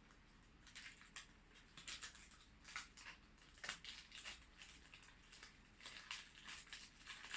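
Faint, irregular rustling and clicking as small camera accessories and their plastic packaging are handled.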